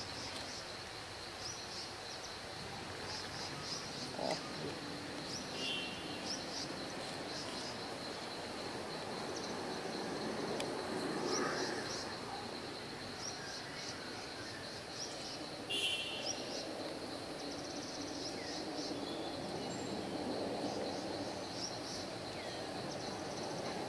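Forest ambience: a steady high insect drone with many short bird chirps over it. A single sharp click comes about two-thirds of the way through.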